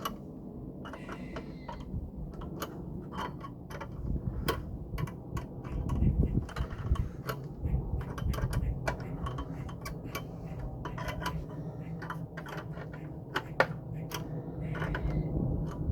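Irregular small clicks and taps of a 7mm socket and pliers working on the brass nuts of a plug charger's contact pins as the nuts are tightened, over a low steady rumble.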